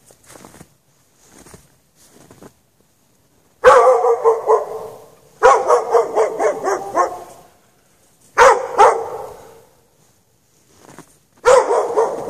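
A dog left chained out in the snow, barking in loud runs of quick barks: one starts a few seconds in, a longer one follows straight after, then shorter bursts about two thirds through and near the end.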